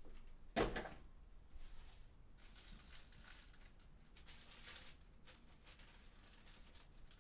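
A single sharp knock, then faint, irregular rustling and crinkling of plastic as card-supply packaging, sleeves and top loaders, is rummaged through out of sight.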